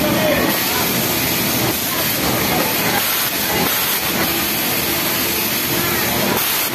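Industrial sewing machines running together on a garment factory floor: a steady, unbroken whirring hiss.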